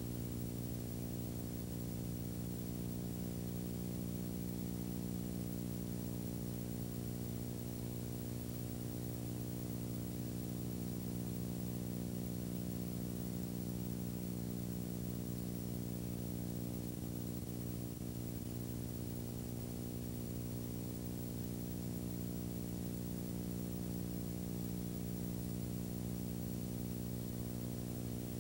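Steady electrical hum with a stack of even overtones and a faint hiss underneath, unchanging throughout.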